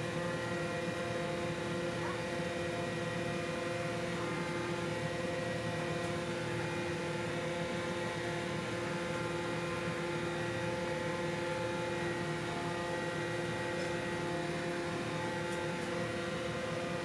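A steady motor hum with several constant tones, holding an even level throughout.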